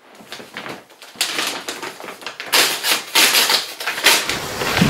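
Paper envelope being torn open and handled, crinkling and rustling in repeated bursts. Just before the end a low rumbling thud sets in.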